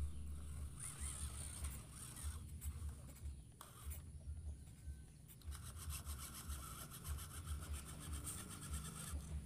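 Small brushed electric motor and plastic gearbox of a WPL C24 RC truck whining and rasping as it crawls up a muddy slope under load, easing off briefly a couple of times.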